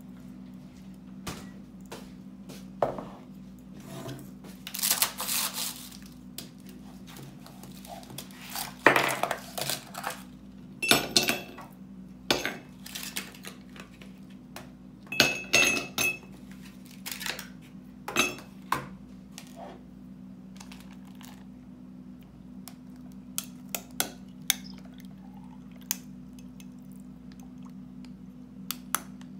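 Ice cubes being worked out of a plastic ice cube tray and dropped into a glass: a run of sharp clicks and clinks, busiest and loudest in the first two-thirds, then only a few scattered clicks.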